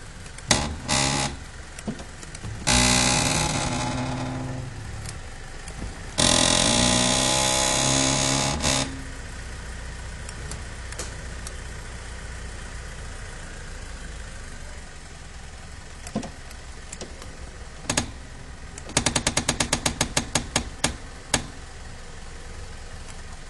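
BMW E39 power seat adjuster motor running twice, for about one and a half and then two and a half seconds, with a cranking noise that seems to come from the seat's gearbox. Later come a few single clicks and then a fast run of clicks, about eight a second for two seconds.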